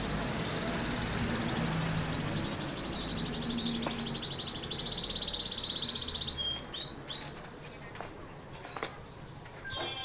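A bird sings a long, rapid trill that drifts slightly lower over about six seconds, then gives a few short chirps.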